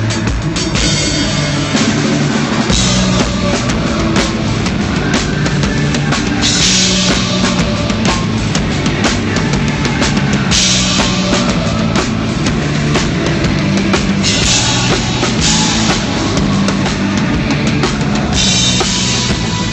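Rock band playing live, drum kit to the fore with a steady bass drum and a bass line. Bright cymbal wash comes in for a second or so about every four seconds.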